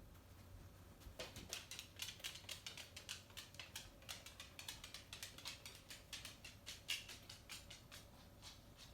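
Faint, rapid, irregular tapping and scratching of a pet playing with a cat toy, several light clicks a second, starting about a second in.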